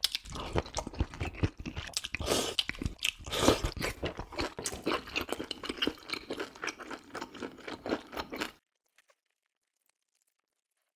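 A person chewing food right at the microphone, with wet, crunchy mouth sounds. It cuts off abruptly near the end, leaving near silence.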